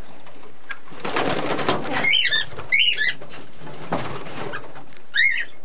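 Small parrots in an aviary chirping and chattering, with sharp warbling calls about two, three and five seconds in.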